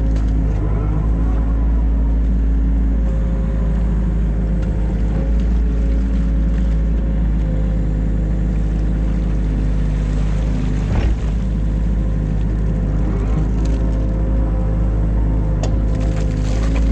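Diesel engine of a New Holland Kobelco E50.2 mini excavator running steadily as it works, with a few sharp knocks, the loudest about eleven seconds in.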